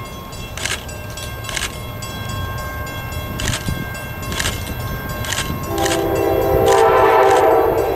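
Approaching locomotive's air horn sounding one chord for a little over two seconds, starting about six seconds in. Before it, a faint ringing strike repeats about once a second.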